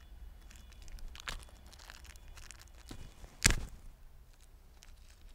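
Small plastic hardware bag being torn open and crinkled in the hands, with scattered soft rustles and clicks and one sharp knock about three and a half seconds in.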